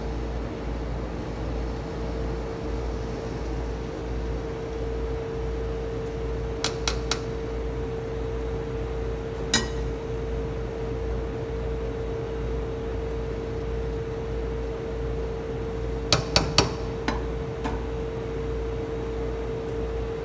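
Metal slotted spoon knocking and clinking against a stainless steel pot while spreading rice: three quick taps about a third of the way in, one louder knock near the middle, and a cluster of taps later on. A steady hum with a constant tone runs underneath.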